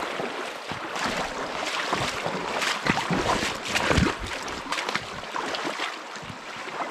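Small rocky stream running and riffling over a shallow bed, with a few louder sloshing steps of someone wading through it, the loudest about four seconds in.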